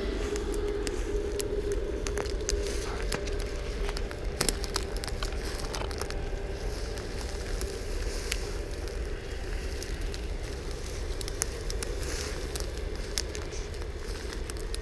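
Footsteps through tall dry grass and brush, the stems and twigs rustling and crackling with many small snaps, over a steady low rumble.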